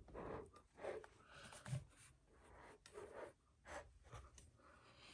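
Faint, scattered rustling and scratching handling noises, four or five short soft bursts about a second apart, from working the crickets' cage by hand.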